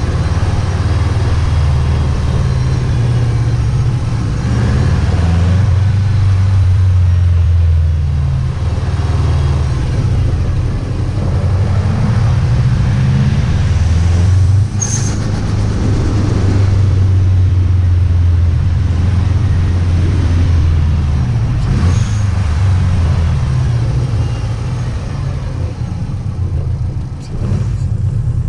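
Subaru WRX STi's turbocharged flat-four engine and exhaust under way, the engine note rising and falling with the throttle. Twice, about halfway through and again a few seconds later, a short sharp burst cuts in as the throttle is lifted: the turbo flutter.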